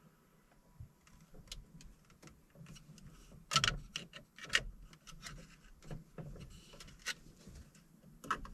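Scattered small clicks, taps and rubbing of hand work on the charge controller's wiring as the positive wire is fastened into its terminal, with a couple of louder knocks about three and a half and four and a half seconds in.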